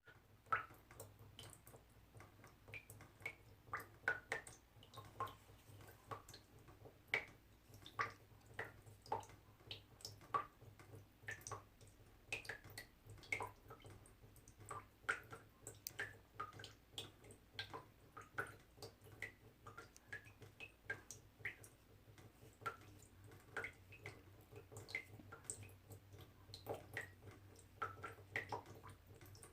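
Small water drops dripping steadily, several a second at an uneven pace, each a short bright plink with a brief pitched ring, over a faint low hum.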